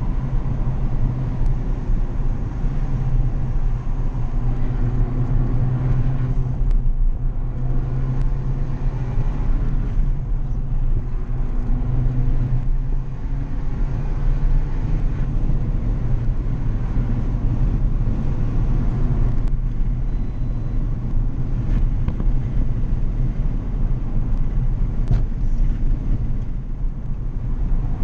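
Abarth 500's turbocharged four-cylinder engine running hard, heard inside the cabin, its pitch rising and falling as the car is driven through bends, with road noise underneath.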